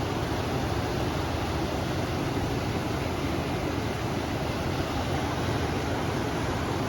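Steady rush of a flowing river mixed with wind, an even noise with no single events standing out.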